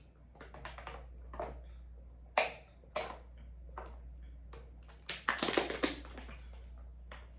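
Drinking from a thin plastic water bottle. The bottle crinkles and crackles in two sharp snaps about two and a half and three seconds in, then in a dense run of crackling about five to six seconds in.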